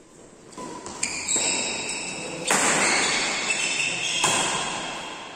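Badminton rally in a large hall: sharp racket strikes on the shuttlecock about a second in, at two and a half seconds and again just after four seconds, each followed by a long ring that fades slowly.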